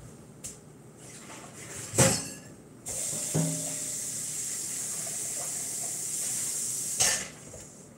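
Steady hiss of running water, about four seconds long, starting and stopping suddenly, after a sharp knock about two seconds in.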